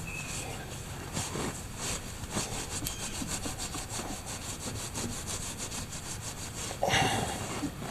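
A soaked rag scrubbing grime off a motorcycle's rear wheel hub in fast, even back-and-forth strokes, with one louder brief noise near the end.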